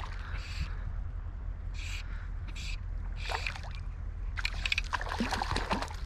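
Steady river flow with water sloshing, then a burst of splashing in the last second and a half as a hooked rainbow trout is played at the surface.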